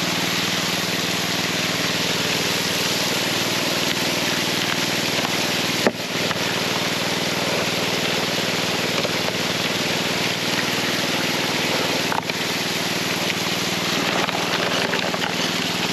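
Small petrol water pump engine running steadily, with water jetting from a PVC spray bar onto a sluice hopper as gold-bearing dirt is washed through it. A brief knock about six seconds in.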